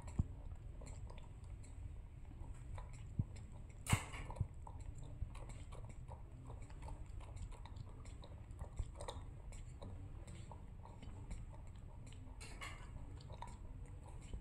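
A baby macaque sucking on a straw from a small milk carton, with faint clicks and rustles as its hands grip the carton over a low rumble. A brief louder slurp-like noise comes about four seconds in, and another near the end.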